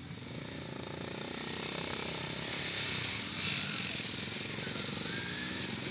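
Motorcycle-and-sidecar outfit's engine running and growing louder as it approaches.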